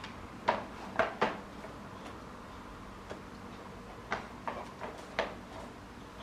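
A boxer dog moving about inside a wire crate: a scatter of sharp clicks and knocks from its paws and the crate as it steps in and turns around, the loudest three within the first second and a half, then a few softer ones later.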